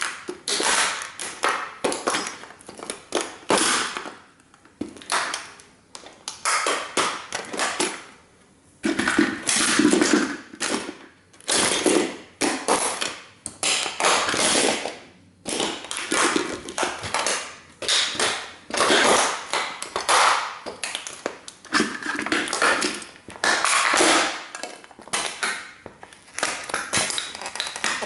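A 1:18 scale model car being stomped and crushed under sneaker soles: an irregular run of crunches and cracks as its parts break, with a heavier crunch about nine seconds in.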